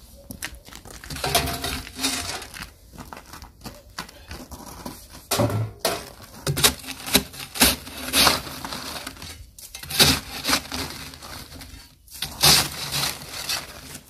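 Shovel scraping and chopping crusted snow and ice off a flat board, in an irregular run of scrapes and knocks.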